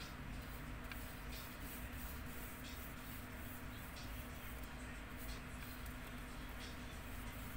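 Paintbrush stroking across paper: faint, short, dry swishes every second or so, over a steady low hum of room noise.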